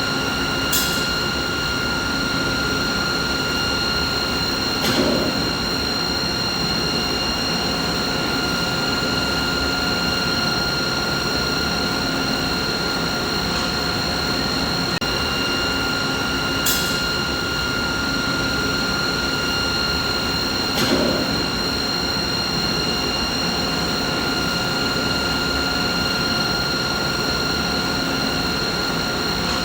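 Steady machinery noise: an even rushing hum with several steady whining tones over it. A light click and a soft knock each come twice, repeating about every sixteen seconds as if looped.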